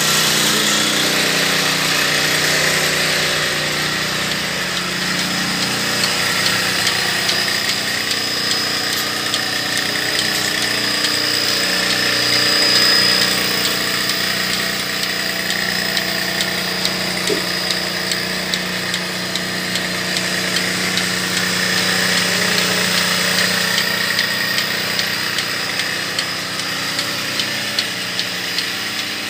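Portable milking machine running steadily: a small engine driving its vacuum pump, with a light regular ticking over the steady drone.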